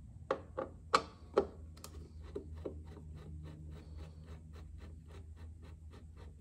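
A few loud knocks and clicks of hands handling the clock in its case in the first second and a half. Then the Aikosha 30-day clock's movement ticks steadily, about three ticks a second, over a low hum.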